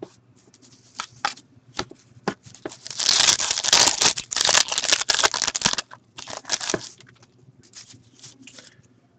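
Foil wrapper of a hockey card pack torn open and crinkled by hand: a few light crackles first, then about three seconds of dense crinkling, with shorter rustles afterwards as the cards are slid out.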